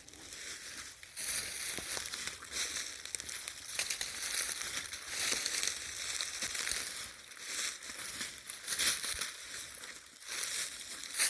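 Footsteps crunching and rustling through dry leaves and brush at a walking pace, an irregular crackle with a louder step about once a second.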